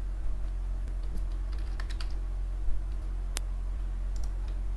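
Keystrokes on a computer keyboard, a few scattered clicks as a short word is typed, with one sharper click a little past three seconds in, over a steady low hum.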